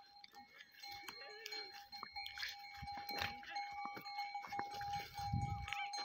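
Goats bleating now and then among the herd, under a steady high-pitched tone. A low rumble comes near the end.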